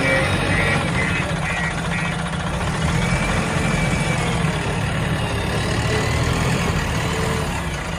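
Diesel engine of a JCB 3DX backhoe loader running steadily, with a reversing alarm beeping about twice a second for the first two seconds.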